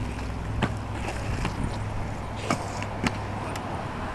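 A skateboard on asphalt giving about five short, sharp clacks at irregular moments, over a steady low rumble.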